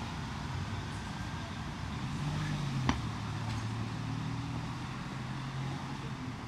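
City street traffic: a motor vehicle's engine running close by, a low steady hum that swells a little in the middle. There is a single sharp knock about three seconds in.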